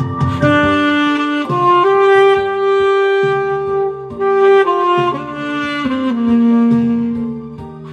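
Instrumental music: a solo melody instrument playing a slow tune of long held notes over a backing track with bass and rhythm.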